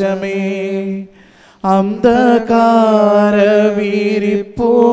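A singer's voice singing a Malayalam hymn to the Holy Spirit: one line ends, a short pause about a second in, then a long held phrase that wavers in pitch.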